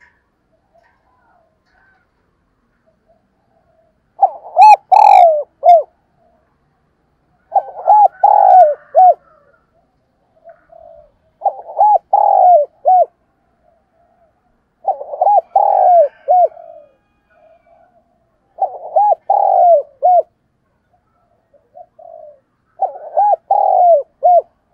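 Spotted dove cooing in repeated phrases of three or four coos each, about one phrase every three and a half seconds, starting about four seconds in. Soft short notes fall between some phrases.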